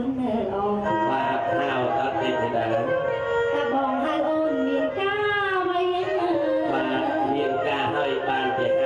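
A woman singing into a microphone over instrumental backing music, her held notes wavering with ornamented vibrato.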